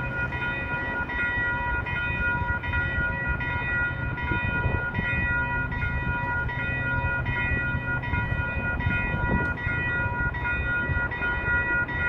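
Railroad crossing warning bell ringing over and over while the gates are down, with a steady low rumble underneath.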